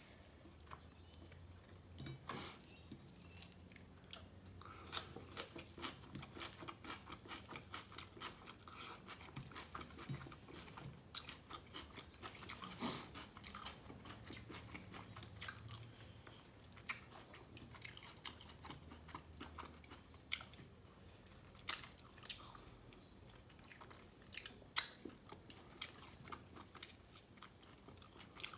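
Close-miked chewing and biting of food, a run of rhythmic wet mouth clicks, then several sharp crunchy clicks in the second half.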